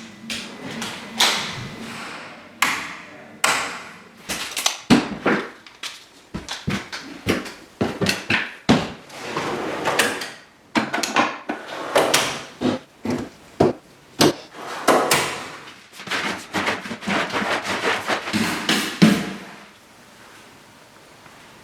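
A run of irregular knocks, taps and clatters of hands-on workshop work, such as hammering in cable clips and handling fittings, which stops about nineteen seconds in.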